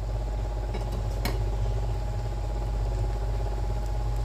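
A steady low mechanical hum with a faint steady tone above it, and one light click about a second in.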